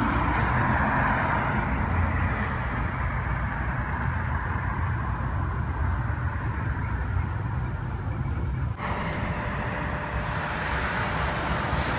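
Street traffic noise: a car passes in the first couple of seconds, its tyre and engine noise fading, then a steady low rumble of outdoor street noise.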